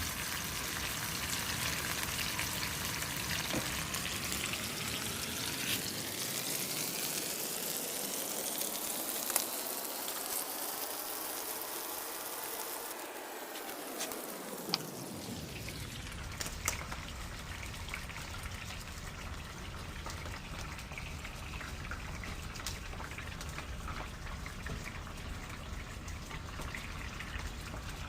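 Marinated pork chops frying in oil in a pan: a steady sizzle with scattered small pops and crackles.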